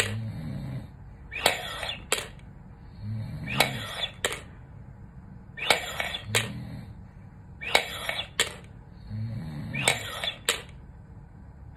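Repeated hard inhalations through a three-ball incentive spirometer, about one every two seconds: each is a loud breathy rush ending in a sharp click, and between them comes a short low voiced sound as she breathes out. These are deep-breathing exercises to strengthen the lungs after open-heart quadruple bypass surgery; she can lift the first two balls but not the third.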